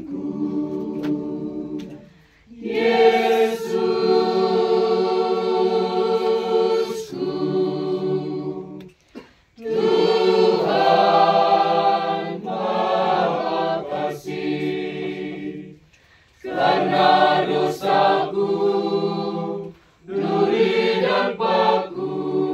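Mixed choir of men and women singing a slow hymn in Indonesian without accompaniment, in long held phrases with short breaks for breath between them.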